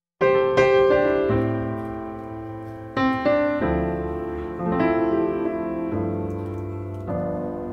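Background piano music: slow notes and chords struck about every second, each ringing and fading away.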